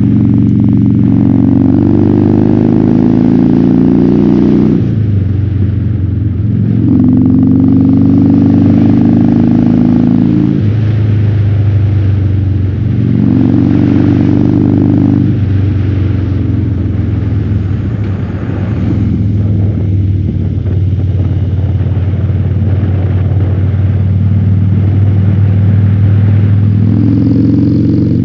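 Harley-Davidson Fat Bob's V-twin through a KessTech ESM3 exhaust in legal mode, heard from the rider's helmet while riding. The engine pulls up through three gears, its pitch rising and dropping at each shift, then holds a steady cruise and begins to rise again near the end.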